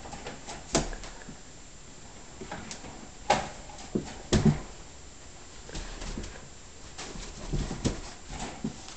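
Belgian Malinois tugging and shaking a stuffed toy: a run of separate thumps and scuffs from paws and toy on the floor, loudest about three to four and a half seconds in, with short low growls among them.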